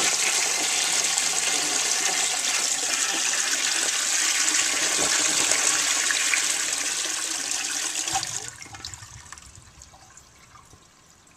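1931 Standard Ejecto toilet flushing: a steady rush of water that drops off sharply about eight seconds in and fades to a faint trickle.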